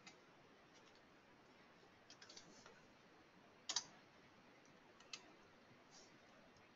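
Faint, scattered clicks of a computer mouse and keyboard, made while a number is typed into a form field. There is a small run of keystrokes about two seconds in, and a sharper double click a little past halfway.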